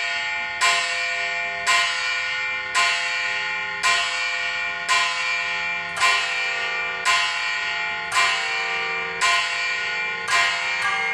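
Orthodox church bells rung by an automatic electronic bell-ringing system, struck at an even pace about once a second, each stroke ringing on into the next. Near the end the strokes come quicker.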